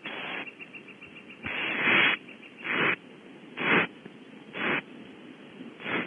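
Barn owl owlets making rasping, hiss-like calls about once a second, each a fraction of a second long. The second call is the longest and loudest. These are the owlets' food-begging calls during a feeding.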